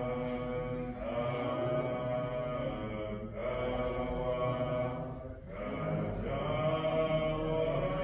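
Voices singing a slow hymn in long held notes, the phrases breaking for a breath about every two seconds.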